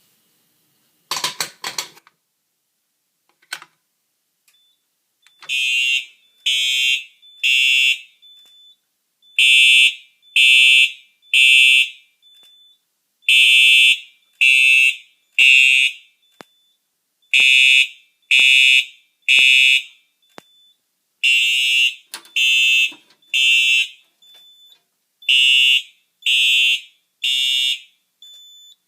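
Simplex TrueAlert fire alarm horn sounding in the temporal Code-3 evacuation pattern: three short blasts, a pause, then three again, repeating every four seconds. A faint high tone lingers between the blasts, and a short loud rattle of clicks comes about a second in, before the horn starts.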